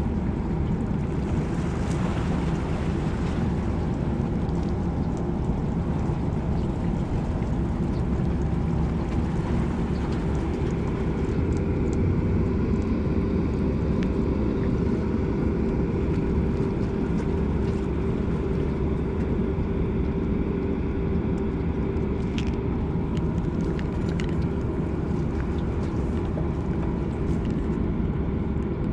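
A steady low mechanical drone with a constant hum running through it.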